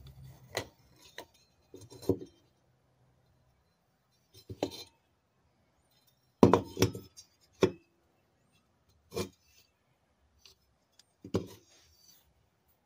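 Rusty mini bike drum brake parts being taken apart by hand: the brake shoes with their return spring and the backing plate lifted out of the spoked wheel hub. Scattered metal clinks and knocks, about eight in all, the loudest a quick cluster about six and a half seconds in.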